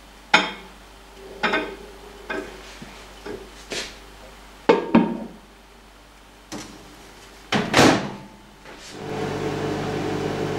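Short knocks and clatters as a plate with a raw egg is set inside a Samsung microwave and covered with a cover dome, then the door shuts with a loud knock. About a second later the microwave starts and runs with a steady hum.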